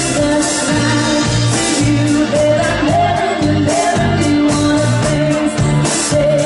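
A band playing a song: a steady drum beat with bass notes and sustained chords, and a voice singing.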